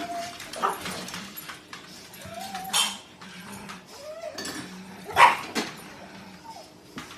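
Pugs begging for food, giving short rising whines and yips with a few sharper barks; the loudest bark comes about five seconds in.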